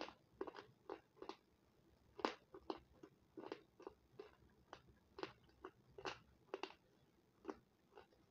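A person chewing and biting a crunchy food: short, crisp crunches at an irregular pace of about two a second.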